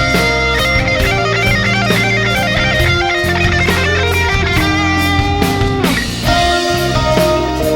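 Rock music with electric guitar leading a fast melody over bass and drums, with a brief break about six seconds in.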